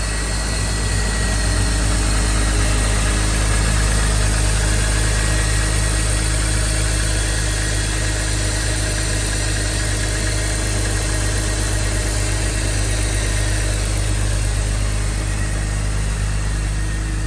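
BMW M54 straight-six engine idling steadily and evenly, with the knocking from the engine bay gone now that the serpentine belt tensioner and belt are new; the noise had sounded very similar to a rod knock.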